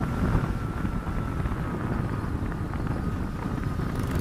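Motorcycle running at steady road speed heard from on the bike, with wind buffeting the microphone in a constant low rumble. A faint steady whine sits above it.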